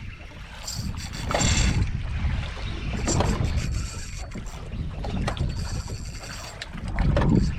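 Wind buffeting the microphone aboard a small fishing boat on open water, a low rumble that swells in gusts several times.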